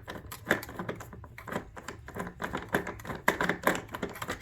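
Hand screwdriver turning out a monitor-stand screw: a quick, irregular run of small clicks, several a second.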